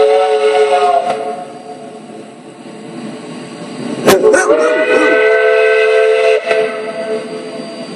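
Multi-note steam locomotive whistle sounding a chord: one blast cuts off about a second in, and a second, longer blast begins about four seconds in, rising in pitch then holding steady before fading. A single sharp crack comes just before the second blast.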